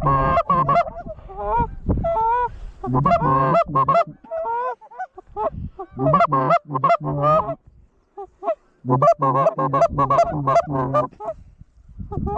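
Goose honking: runs of fast honks and clucks in several bursts, with a brief pause about eight seconds in.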